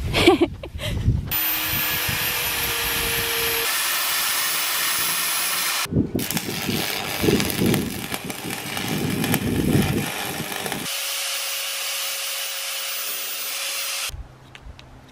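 Metalwork power tools in short cut-together clips: steady grinding noise, then several seconds of irregular crackling from a stick-welding arc, then the steady whine of a corded angle grinder with an abrasive disc grinding metal.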